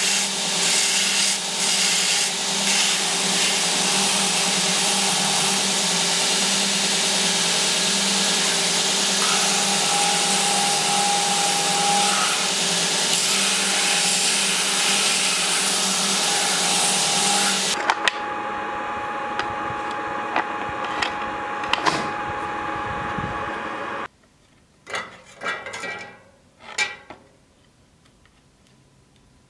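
Belt grinder sanding the edge of a wooden scabbard piece: a loud, steady grinding hiss over the motor's hum. About 18 seconds in the wood comes off the belt and the grinder runs on more quietly, then near the end it stops and a few short strokes of a hand file on wood follow.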